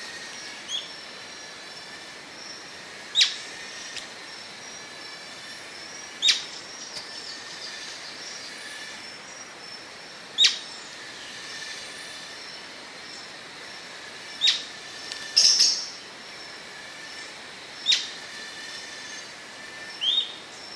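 Atlantic royal flycatcher (maria-leque-do-sudeste) giving short, sharp single calls about every three to four seconds, with a quick double call in the middle. A steady high-pitched background chorus runs under the calls.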